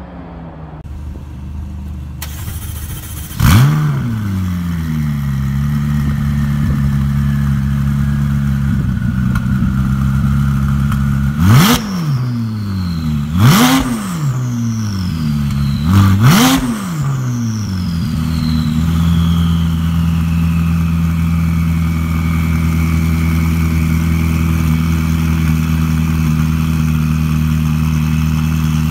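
McLaren 570S's 3.8-litre twin-turbo V8 exhaust: one sharp rev flare a few seconds in, then idling, three quick throttle blips near the middle, each rising and falling fast, and then a steady idle.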